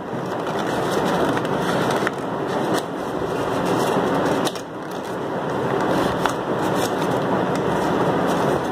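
Stiff craft paper rustling and crinkling as hands open out and shape a folded paper boat, a continuous crackly rustle with a brief lull about halfway through.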